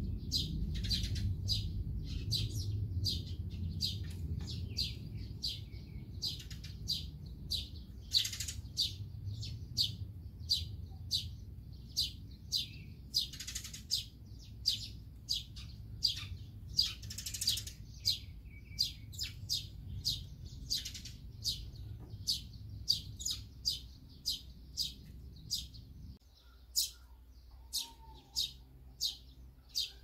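Eurasian tree sparrows chirping, short sharp chirps repeated about one to two a second, over a low rumble that drops away near the end.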